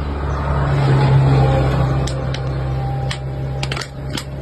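Steady low hum with a swell of noise about a second in, then a run of sharp clicks and knocks from about two seconds in, as the milk vending machine's glass dispenser door is opened and a plastic bottle is handled.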